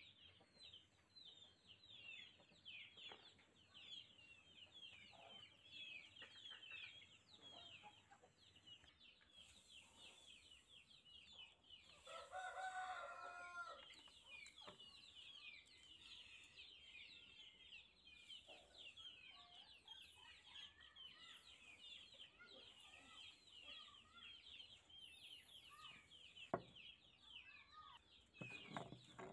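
Faint farmyard birds: dense, continuous high chirping from many birds, with one longer call from a rooster crowing about halfway through. A single sharp click comes near the end.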